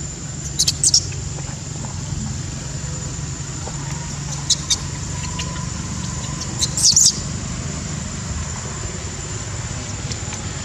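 Infant long-tailed macaque giving short, very high-pitched squeals of distress, three times, about half a second in, about four and a half seconds in, and about seven seconds in, over a steady low rumble.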